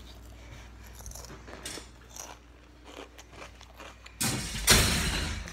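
Faint crunching chews of a crunchy snack, then about four seconds in a loud rustling noise lasting over a second.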